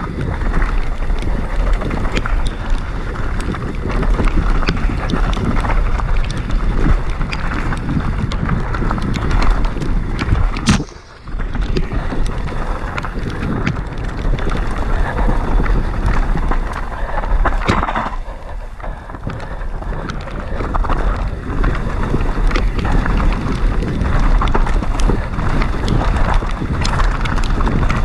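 YT Capra enduro mountain bike ridden fast down a forest dirt trail: wind buffets the action camera's microphone over tyre noise on the dirt, with constant rattling and knocking from the bike over bumps. The noise drops out sharply for a moment about eleven seconds in.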